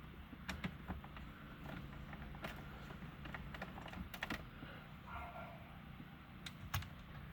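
Faint, scattered small clicks and light taps of screws being driven with a screwdriver and small parts handled on a Uconnect head unit.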